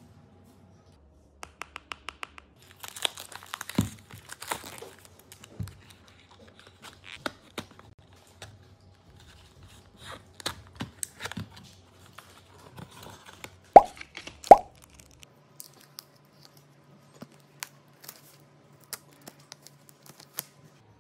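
Packaging being handled and opened by hand: cardboard and plastic wrapping crinkling and tearing, with light clicks and taps of plastic cups. About two-thirds of the way through come two loud, sharp pops a little under a second apart.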